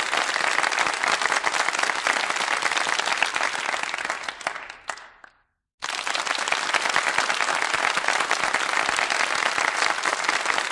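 Small studio audience applauding politely, a dense patter of many hands. About halfway through the clapping thins out and dies away to a brief silence, then a new round starts suddenly at full strength.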